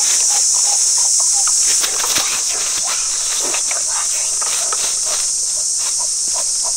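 Steady high-pitched drone of insects, with scattered clicks and short chirps over it.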